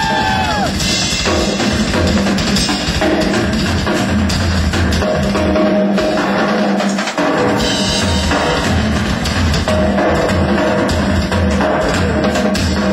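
Rock drum solo on a full drum kit, with kick drum and snare played in dense, continuous patterns. A held note from the band slides down and stops in the first second.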